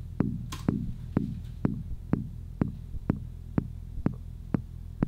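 Eurorack modular synthesizer patch playing short percussive hits about twice a second, each with a quick low decay, over a steady low drone.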